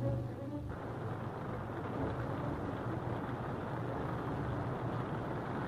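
Music stops less than a second in, giving way to the steady, noisy running of a military vehicle's engine.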